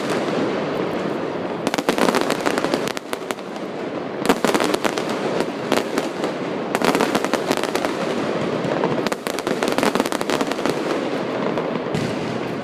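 Fireworks going off: aerial shells bursting with rapid runs of crackling, in waves a few seconds apart.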